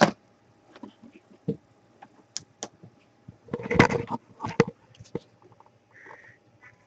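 Scattered light clicks and taps of a computer keyboard and mouse, with a quick run of them about halfway through.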